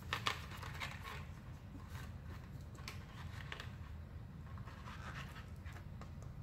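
Faint scratching and scraping in short, irregular strokes as a small metal tool pries a hardened crystal shape out of a clear plastic mold, over a steady low hum.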